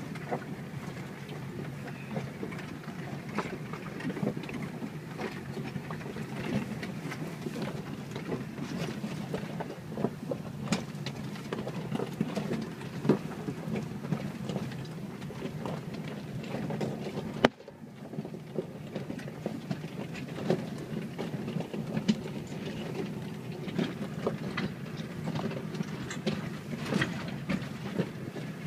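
Jeep tires rolling slowly over loose, sharp talus rock, the stones crunching and grinding under the tires in a constant crackle over the low drone of the running vehicle. A single sharp knock comes about two-thirds of the way through.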